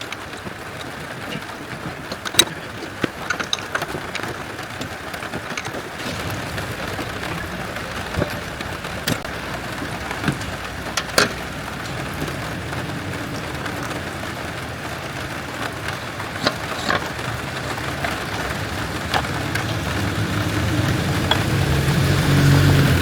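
Light rain falling steadily, with scattered sharp clicks and taps. A low engine rumble builds over the last few seconds.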